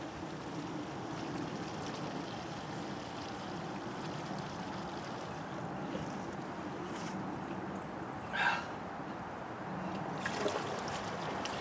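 Gasoline pouring from a plastic gas can's spout into a small engine's fuel tank, a steady trickle, with one short louder sound about eight seconds in.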